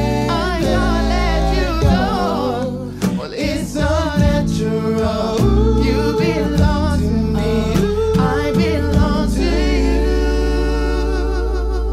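Male vocal group singing in close harmony over a double bass, closing on a long held chord.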